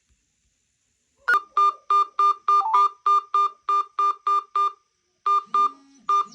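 A smartphone's alarm clock beeping: a click a little over a second in, then a rapid electronic beep at about three a second. The beeping breaks off briefly near the end and resumes as a lower tone begins under it.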